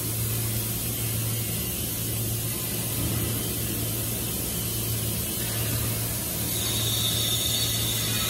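Steady low hum and noise of machinery in a metal fabrication shop, with a higher hiss joining in near the end.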